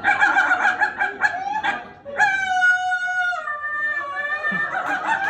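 A man imitating a puppy with his voice: a quick run of short yips and whimpers, then a long, held whine from about two seconds in that drops to a lower pitch partway through.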